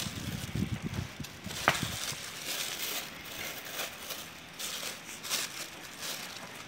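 Clear plastic sheet crinkling and rustling as it is pulled and tucked over a wooden box, in uneven bursts, with a few low handling bumps near the start and one sharp click under two seconds in.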